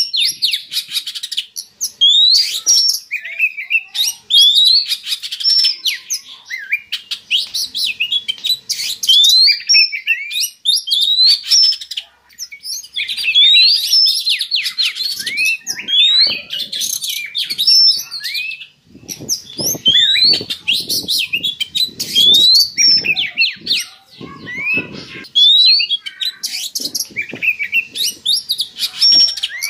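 Oriental magpie-robin (kacer) singing a breeding-condition song: a rapid, varied run of sweet rising whistles and harsher notes, in phrases of a second or two with short pauses between them.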